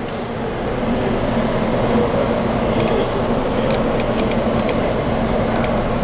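Steady mechanical hum and whir of a claw machine as its claw is steered across the cabinet, with a few faint clicks partway through.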